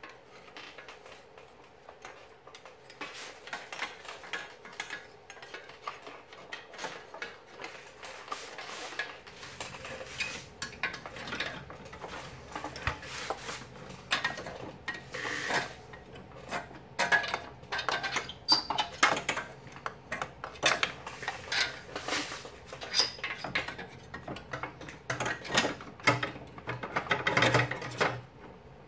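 Irregular metallic clinks, taps and rattles as a transmission dipstick tube is fed by hand up into place under a Chevy Tahoe, knocking against surrounding parts. The clinks are sparse at first and grow busier and louder about a third of the way in.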